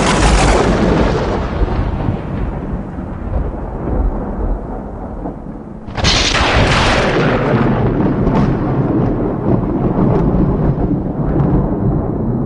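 Thunder: a sharp crack that rolls off into a long low rumble, then a second loud thunderclap about six seconds in, followed by more rumbling and crackling.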